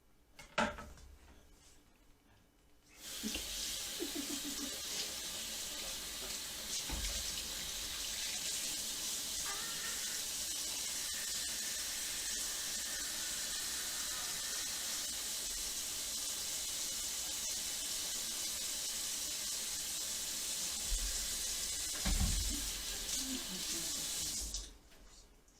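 Kitchen sink tap running in a steady stream for about twenty seconds. It is turned on about three seconds in and shut off near the end, with a few low knocks at the sink while it runs.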